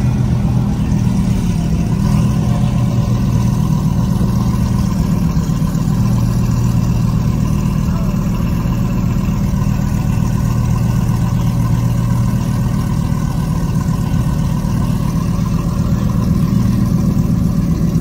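Lamborghini Huracán's V10 engine running steadily at low revs as the car creeps along at walking pace, a deep even drone.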